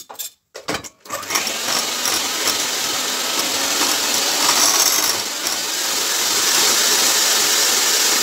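Electric hand mixer switched on about a second in and running steadily, its twin beaters churning thick cake batter in a glass bowl. A few light clicks and knocks come just before it starts.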